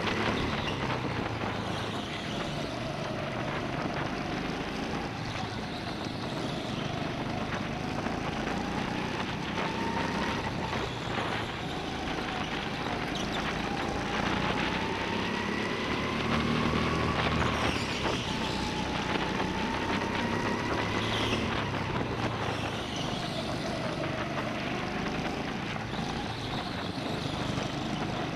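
Go-kart running at racing speed, its whine slowly rising and falling in pitch as it speeds up and slows through the corners, over a steady rumble.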